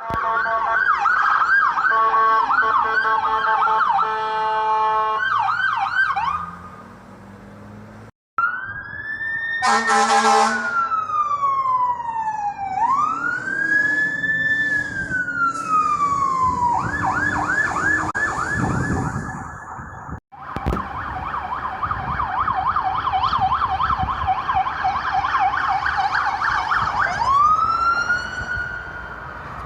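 A run of emergency vehicle siren recordings spliced together. It opens with several fast yelp sirens overlapping. After a cut comes a slow wail rising and falling twice, with a short horn blast over it about 10 s in. It then switches to fast yelping, and after another cut yelps again before ending on a slow wail rising.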